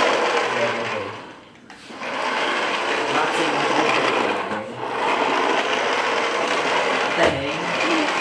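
A small electric motor whirring steadily, dying away briefly about a second and a half in and dipping again near five seconds.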